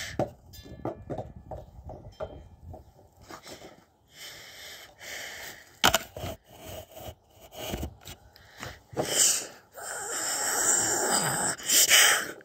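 Breathy vocal noises, a person huffing and snarling to voice toy wolves, loudest near the end. Light clicks and taps of plastic animal figurines set down on wooden deck boards come mostly in the first few seconds.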